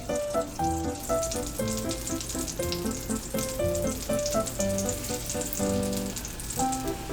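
Bread toast frying in a pan, a steady crackling sizzle that starts about a second in, under background piano music.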